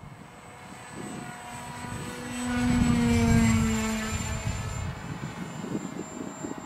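Radio-controlled model airplane flying past overhead: its motor and propeller drone swells to its loudest about three seconds in, the pitch dropping as it passes, then fades.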